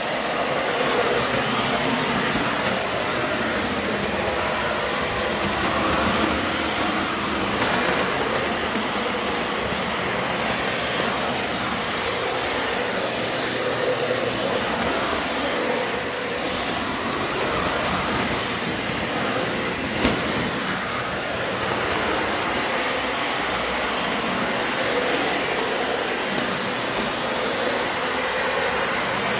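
Dyson Ball upright vacuum cleaner running steadily while vacuuming, with one short sharp click about twenty seconds in.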